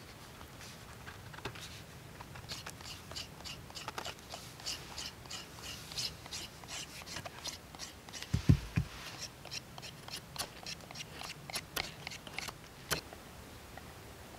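Knife blade carving a green wooden stick: a quick series of short, crisp scraping cuts as wood is shaved off. A single dull thump, the loudest sound, comes a little past halfway.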